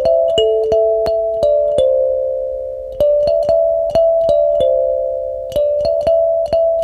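Instrumental background music: a slow, gentle melody of struck or plucked notes, each ringing on as the next begins.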